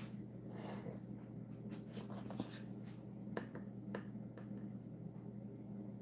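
A few faint, sharp clicks and taps, spread unevenly, from handling a small dye spoon, over a steady low hum.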